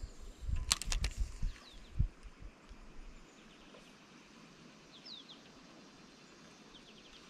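A few low knocks and sharp clicks in the first two seconds as a spinning rod and reel are handled and cast, then faint bird chirps over a quiet background.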